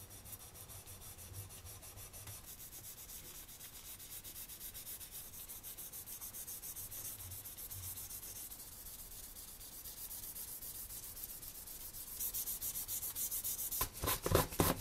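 Abrasive paper rubbed in quick back-and-forth strokes over the painted plastic body of a scale model car, a steady dry scratching. Near the end come a few louder scrapes and knocks as a plastic jar lid is handled.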